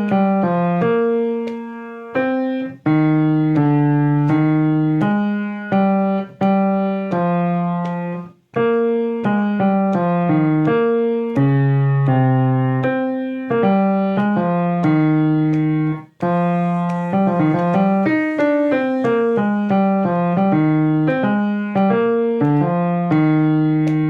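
Piano playing a song's vocal line at a slow tempo, one struck note after another, each held about a second, as a practice track for a singer.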